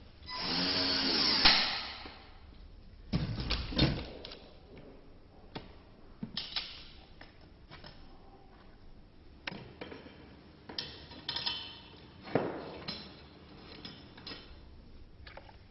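Workshop assembly sounds from furniture making. A short machine whir falls in pitch and ends in a sharp knock, followed by scattered knocks and clicks of tools on chair parts.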